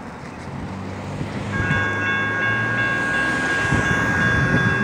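A level-crossing warning bell starts ringing about a second and a half in, as steady high tones that pulse in a quick rhythm. It rings over the low rumble of an approaching diesel train's engines.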